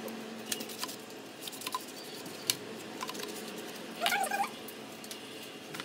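Hands smoothing and pressing thin phyllo (gullash) sheets into a metal baking tray: soft papery rustles and scattered light taps, over a steady low hum.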